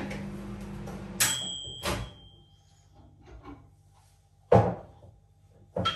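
Microwave oven running with a steady hum that stops with a sharp click about a second in as its door is opened, followed by a brief ringing tone. A few separate knocks and thuds follow.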